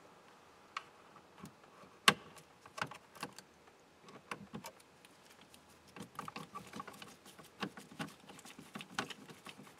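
Irregular small clicks and rattles of hand work at a car's steering column: screws and a screwdriver being fitted to the turn signal switch. The sharpest click comes about two seconds in, with a busier run of light clicks from about six seconds on.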